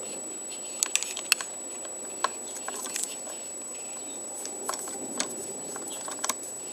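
Light, irregular clicks and taps of small metal parts and hand tools being handled at a motorcycle handlebar, with a cluster about a second in. Under them runs a steady hiss with a faint high whine.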